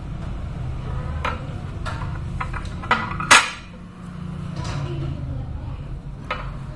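A few sharp metallic clinks and taps as a syringe needle is touched to a large copper coin and the syringe is set down on the table, the loudest about three and a half seconds in, over a steady low hum.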